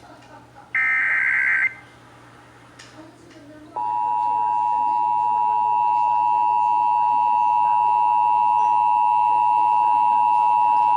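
Emergency Alert System signal. About a second in there is a one-second warbling data burst of the SAME digital header. From about four seconds in, the steady two-tone EAS attention signal (853 and 960 Hz together) sounds, marking the start of an alert activation, here a severe thunderstorm warning.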